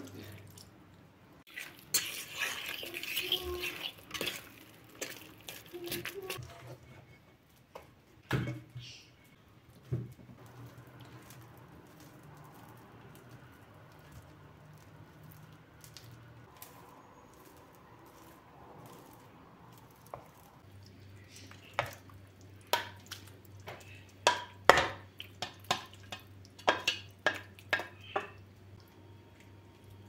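Kitchen utensil sounds. A spoon stirs mashed potatoes in a stainless steel bowl, then a wooden spoon scrapes and knocks against a glass baking dish while the food is spread, with a run of sharp knocks in the latter part.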